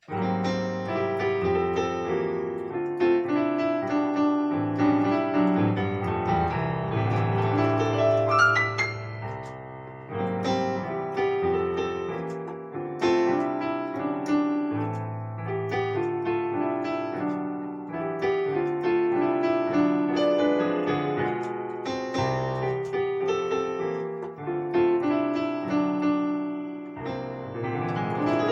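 Keyboard with a piano sound playing sustained chords broken into arpeggios. A quick rising run of notes comes about a third of the way through, and another near the end.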